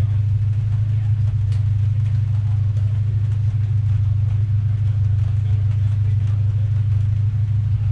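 Race car engine idling with a steady low drone, heard from inside the stripped, caged cabin.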